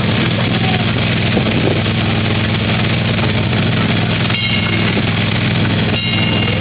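Miniature kiddie train's engine running steadily, heard from the passenger car it is pulling as the train rolls along.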